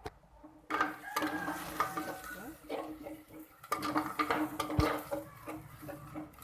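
A spoon stirring and scraping onions and ginger-garlic paste around a cooking pan, with clinks against the pan, starting about a second in. The stirring is continuous to keep the paste from catching on the bottom.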